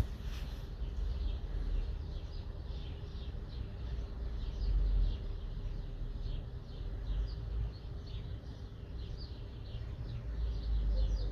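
Many small birds chirping continuously, dozens of short chirps overlapping, over a low rumble.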